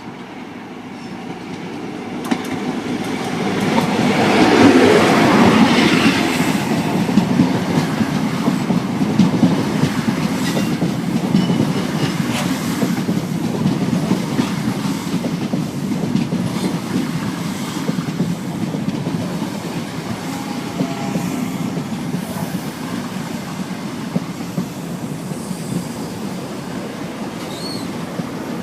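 A train passing through on the main line: the rumble swells to its loudest about five seconds in, then carries on steadily with the clicks of wheels running over rail joints.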